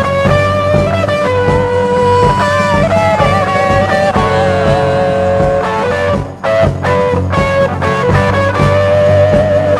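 Rock band music led by electric guitar over a steady bass line, with no singing.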